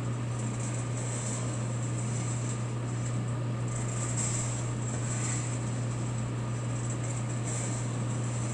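Hot-air cyclone sample coffee roaster running mid-roast: its blower gives a steady low hum and an even rushing hiss of air, which swells and eases slightly every second or so.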